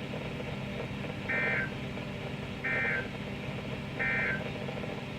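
Three short bursts of NOAA Weather Radio SAME digital data warble, each about a third of a second, spaced about a second and a half apart. This is the end-of-message signal that closes the weekly test. A steady radio background noise runs underneath.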